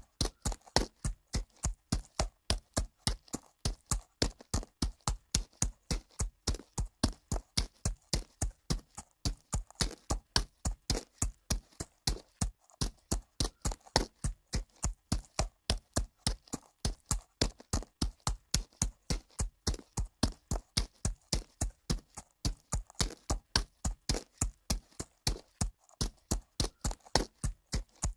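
Horse's hooves walking on dirt: a steady, even run of hoofbeats, about three to four strikes a second.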